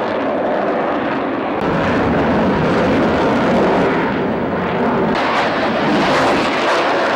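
Jet noise from a Eurofighter Typhoon's twin engines in a display pass. The rumble swells about two seconds in and grows louder and harsher about five seconds in, with the afterburners lit.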